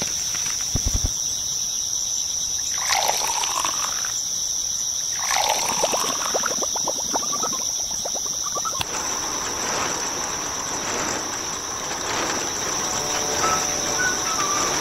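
Sand-cement mix poured into the small plastic drum of a toy concrete mixer: two pours, at about three and five and a half seconds in, each a hissing trickle that dips and then rises in pitch. Under it runs a steady, high insect chirring, and music comes in near the end.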